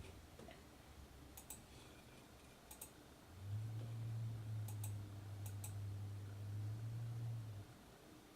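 Computer mouse clicking in quick pairs, like double-clicks, four times. A steady low hum starts about three and a half seconds in and stops shortly before the end.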